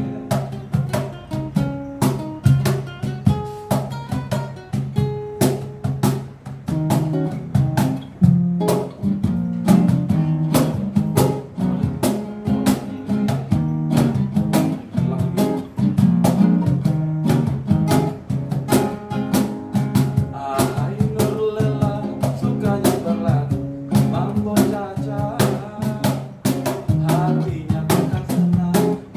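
Acoustic guitar and cajon playing together, the cajon keeping a steady beat under the guitar's chords and melody.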